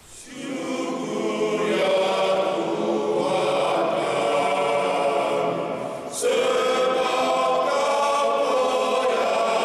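Men's choir singing sustained chords, with a short break about six seconds in before the next phrase starts louder.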